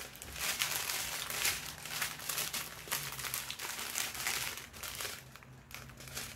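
Small clear plastic bags of diamond-painting drills crinkling and rustling as they are shuffled through by hand. The crinkling is busy and irregular, and thins out about five seconds in.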